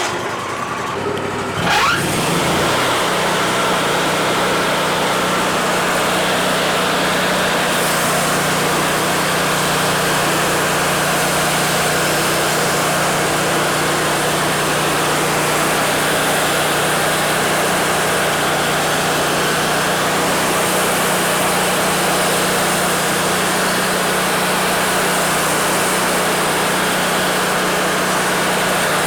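Wood-Mizer LT40 sawmill's engine just after starting. It revs up about two seconds in and then runs steadily at high speed.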